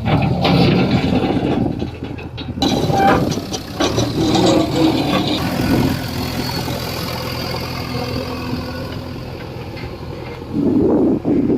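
JCB 3DX backhoe loader's diesel engine running, with scattered knocks and clanks from the machine at work, and a louder surge of engine noise near the end.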